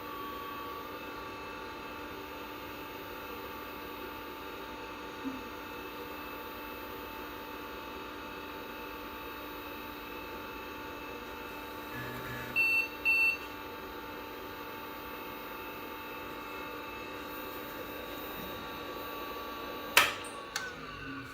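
IBM 5160 PC-XT running, its fan and hard drive giving a steady hum with several constant whining tones. About two-thirds of the way through, the PC speaker gives two short high beeps. Near the end there is a single sharp clack.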